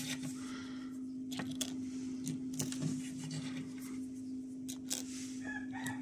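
Cockerels crowing and clucking in the background, with light clicks of small metal washers being handled and set onto bolts, over a steady low hum.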